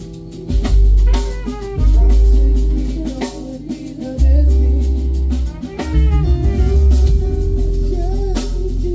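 Band music: a drum kit keeping a beat under heavy, sustained bass notes and guitar, with a voice singing over it.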